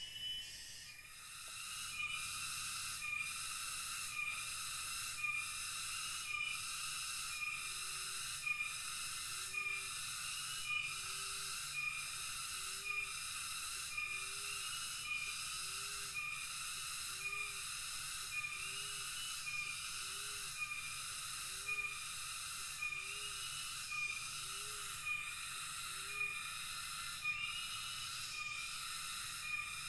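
Tropical forest cicada chorus, pulsing about once a second, joined about two seconds in. A fainter low note repeats at about the same rate through the middle stretch.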